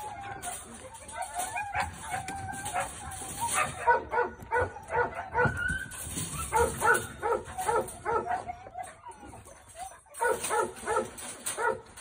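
German Shorthaired Pointer yipping and whining in excitement at a caged bird: short high-pitched yelps in quick runs of about three a second, with a brief break before the last run.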